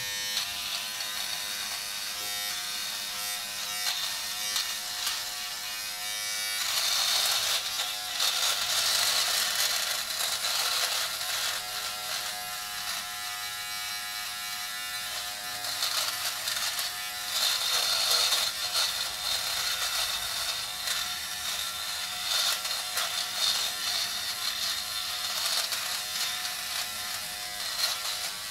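Philips Norelco Multigroom 7000 face trimmer buzzing steadily as it cuts thick stubble, with louder stretches of cutting noise as the head is worked over the face.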